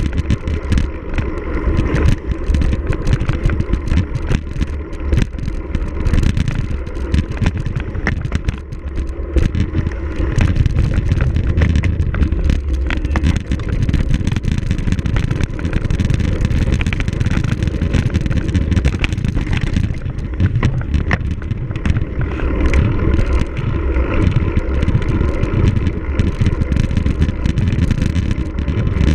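Heavy wind rumble on the microphone of a camera riding on a cyclocross bike at race speed, mixed with a steady clatter and rattle of the bike over rough ground.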